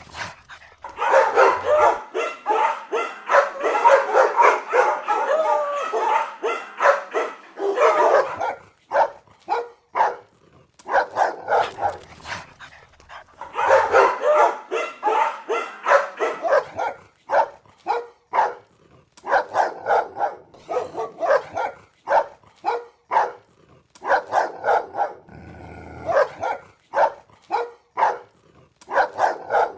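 Dogs barking aggressively. Runs of rapid, overlapping barks alternate with sparser single barks.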